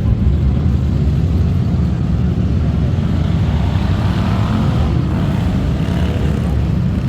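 Motorcycle engines running with a loud, continuous low rumble that swells briefly around the middle.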